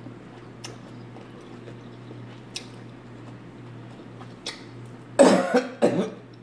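A woman coughs twice in quick succession about five seconds in. A few faint clicks come before, over a steady low hum.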